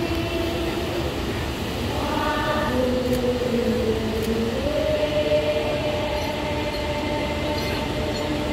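Massed voices of a thousand-strong hát then chorus singing long held notes that slide slowly in pitch, over a steady low rumble.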